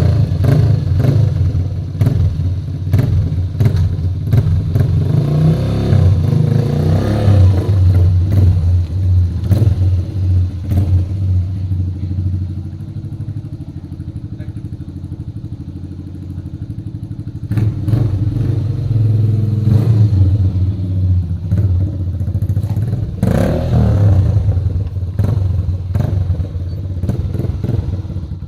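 Yamaha YBR 125 Factor's single-cylinder four-stroke engine running through a Roncar aluminium oval aftermarket exhaust with its baffle removed, revved repeatedly. It drops to a quieter, steadier idle for a few seconds in the middle, then is revved again.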